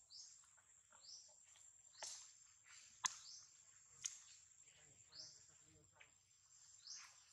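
Faint bird chirps, short rising calls repeating every second or two, over a steady high insect whine. A sharp click comes about three seconds in, and a smaller one a second later.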